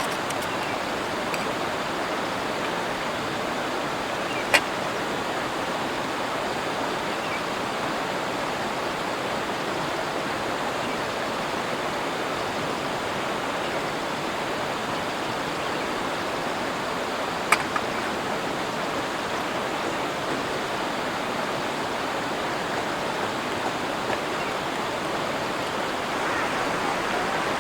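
River water rushing steadily, with two short sharp clicks, one a few seconds in and another a little past the middle.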